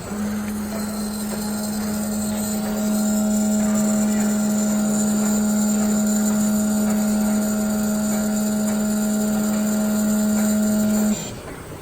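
CNC digital cutting machine running its automatic knife depth adjustment: a steady electric motor hum with a high whine above it, growing louder about three seconds in and cutting off suddenly near the end.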